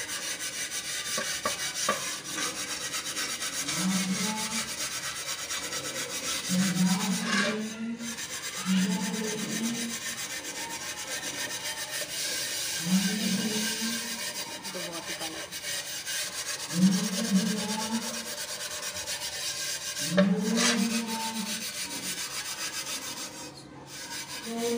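Steel wool scrubbing cleaning paste hard over the flat metal face of a tawa griddle: a continuous scratchy scrubbing of back-and-forth strokes, pressed down with a lot of force.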